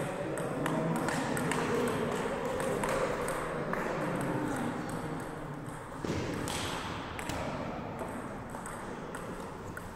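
Table tennis rally: the ball clicking off the bats and the table again and again in quick, uneven succession.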